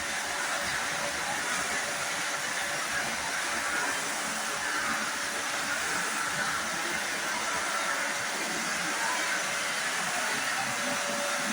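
Kärcher WD 2 Plus wet-and-dry vacuum cleaner running steadily, a continuous airy rush from its 1000 W suction motor with a faint constant hum.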